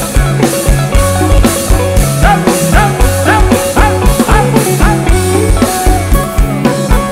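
Live rock band playing over a large outdoor PA, heard from within the crowd: a steady drum beat with bass under a lead instrument that bends its notes upward again and again.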